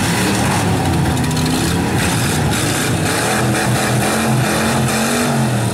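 Several V8 demolition derby cars' engines running and revving together, the pitch rising and falling as the drivers work the throttles.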